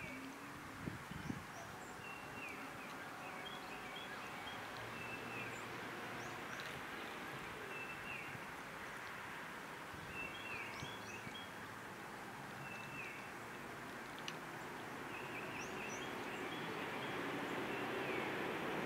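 Outdoor ambience: a bird repeats a short call every couple of seconds, with fainter chirps over a steady background hiss. The background slowly grows louder near the end.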